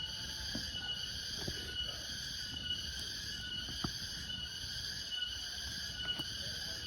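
Steady chorus of rainforest insects, several high buzzing and shrilling layers at once. A few faint sharp clicks or snaps sound over it.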